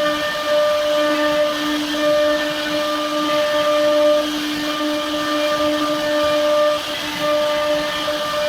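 Air-cooled spindle of a CNC router running at speed: a steady whine with a hiss of fan air, faltering briefly now and then.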